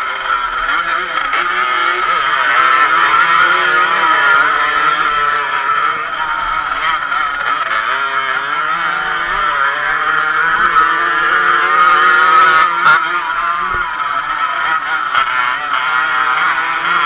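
Dirt bike engine heard from on board, revving up and down repeatedly as it rides along a rough dirt trail.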